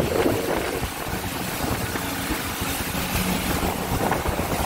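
Yamaha 242S jet boat running at speed across a lake: a steady engine drone under the rush of water and spray from its wake.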